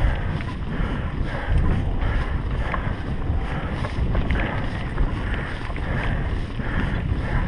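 Wind buffeting the action camera's microphone over the low rumble of mountain bike tyres on a bumpy dirt trail, with scattered small rattles and knocks from the bike.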